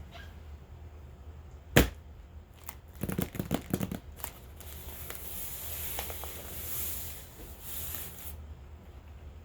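Packaging being handled for unboxing: one sharp click about two seconds in, a quick run of clicks and crinkles a second later, then a few seconds of soft rustling.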